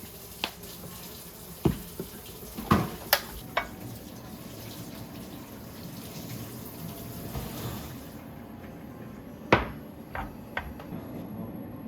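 Kitchen tap running into a sink, shut off about eight seconds in, with sharp clinks and knocks of dishes or utensils throughout, the loudest one shortly after the water stops.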